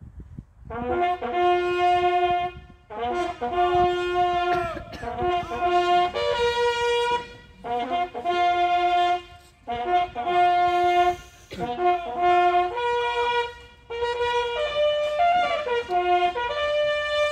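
A lone bugle sounding a ceremonial remembrance call: held notes of a few fixed pitches, played in short phrases with brief breaths between them.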